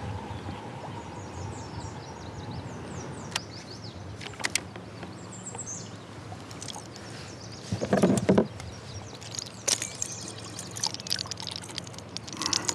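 Water splashing as a small northern pike thrashes at the surface beside a kayak while it is landed by hand, with a louder splash about eight seconds in and scattered sharp clicks of the tackle being handled.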